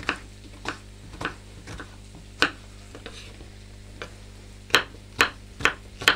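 Kitchen knife cutting a yellow bell pepper on a wooden chopping board: a few separate cuts, then four quicker chops about half a second apart near the end.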